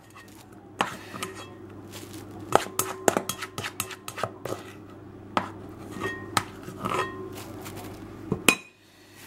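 A rice paddle knocking and scraping against the nonstick inner pot of a rice cooker: an irregular run of sharp clicks and taps, with a louder knock near the end.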